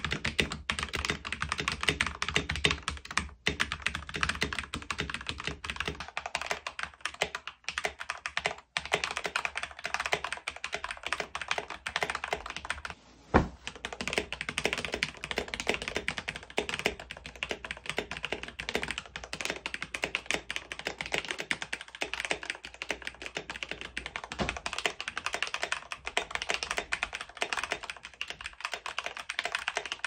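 Fast continuous typing on a mechanical keyboard, its key clicks running dense and even, first on a bare wooden desk and later on a folded moving blanket. A little under halfway the typing breaks off briefly, with a single sharp thump.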